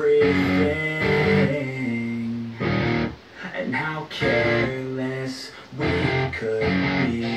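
Recorded music from a Bluetooth source playing through a vintage CCE SR-5050 stereo receiver, with loudness on and the tone controls flat; the bass is deep and full.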